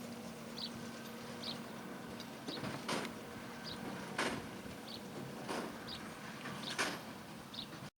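Massey Ferguson 2170 large square baler working behind a tractor, with a steady hum and a heavy stroke about every 1.3 seconds. A light squeak repeats at a faster pace. The sound cuts off suddenly just before the end.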